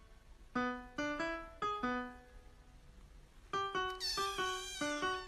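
Piano notes picking out a simple melody, and about four seconds in a cat's meow, a wavering cry that falls in pitch, over the notes.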